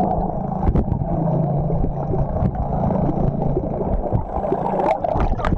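Muffled churning and gurgling of water heard through a camera held underwater, with scattered sharp knocks and clicks.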